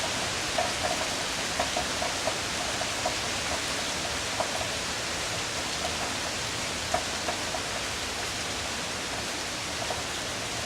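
Steady hiss of falling rain, with irregular sharp ticks of drops hitting a hard surface.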